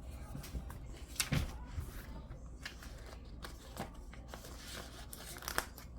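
Paper and stickers being handled over a planner: soft rustling with scattered sharp ticks and taps, the loudest a little over a second in and again near the end.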